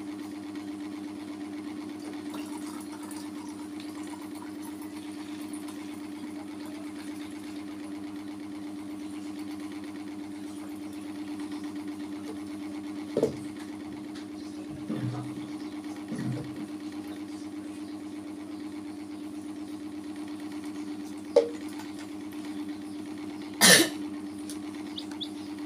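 Steady low machine hum, with a few brief sharp knocks, the loudest about two seconds before the end.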